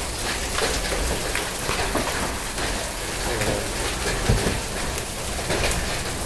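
Heavy rain mixed with hailstones falling and striking hard surfaces: a steady hiss of rain dotted with many sharp ticks of hail impacts, with one louder knock about four seconds in.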